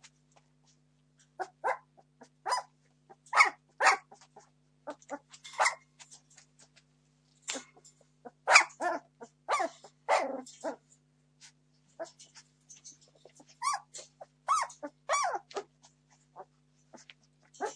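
Entlebucher Mountain Dog puppies, 17 days old, yelping and squealing in short repeated cries, starting about a second in: young puppies crying to be fed.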